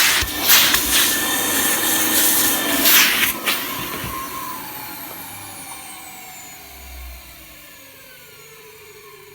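1981 Durnbury industrial vacuum with a Henry H3-type motor running at full suction, with a few sharp clicks. About three and a half seconds in it is switched off, and the motor winds down with a falling whine that fades away. It runs not too badly, its motor freshly cleaned.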